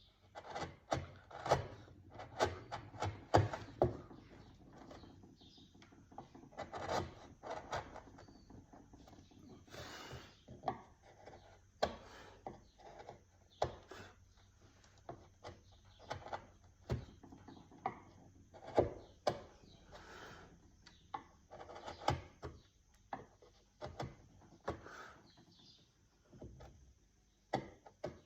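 Wood being carved by hand: irregular short scraping strokes and small knocks of a hand tool on wood, coming in clusters with brief pauses.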